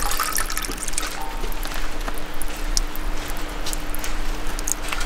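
Water poured from a ladle onto a stone Buddha statue at a suikinkutsu water harp, splashing and trickling down, with a brief clear ringing note about a second in.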